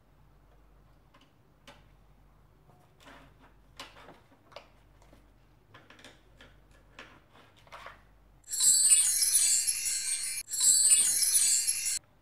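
Faint clicks and taps of makeup palettes and brushes being handled, then a loud, high, shimmering chime sound effect that plays twice with a short break between.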